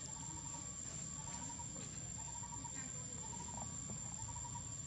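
Insects chirping: a short pulsed trill repeats about once a second over a steady high-pitched whine.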